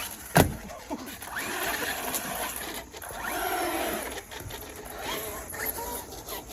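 Electric RC truck motor whining, rising and falling as the throttle is worked, with one sharp knock about half a second in.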